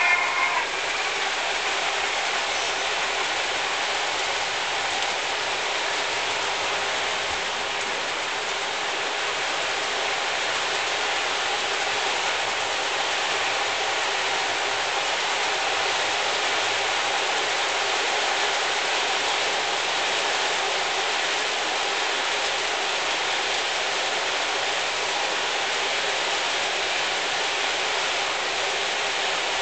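A long train of O scale model freight cars rolling past on the track: a steady, even rolling noise of many wheels on the rails. The tail of a whistle cuts off just after the start.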